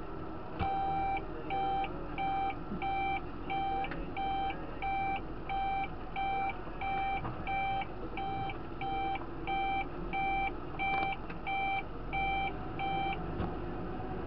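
Electronic beeping, short beeps at about two a second, starting about half a second in and stopping about a second before the end, over the steady running of a tractor engine heard inside the cab.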